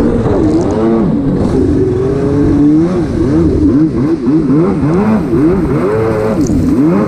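Jet ski engine running hard, its pitch swinging up and down repeatedly, about twice a second from about three seconds in.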